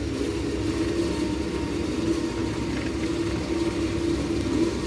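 Steady drone of a running engine: a low rumble with a constant hum, unchanging throughout.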